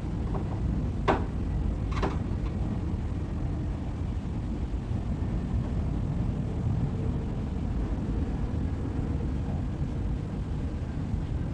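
Two sharp knocks, about one and two seconds in, with a few lighter clicks just before them, as a wooden garage cabinet is worked on to take it apart. A steady low rumble runs underneath.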